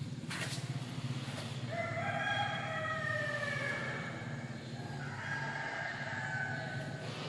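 A rooster crows twice, two long calls that each fall in pitch, over a steady low hum.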